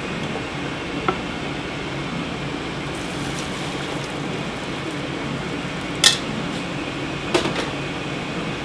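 Metal kitchenware clanking as soup stock is strained through a wire-mesh strainer into an aluminium saucepan: three sharp clanks, the loudest about six seconds in. Under them runs the steady rush of a commercial gas range and kitchen ventilation.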